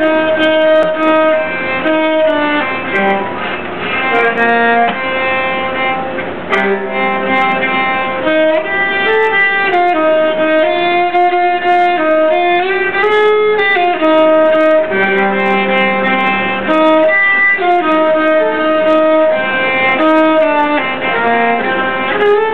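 Nyckelharpa, the Swedish keyed fiddle, bowed to play a tune: pitched notes changing several times a second, often with two notes sounding together.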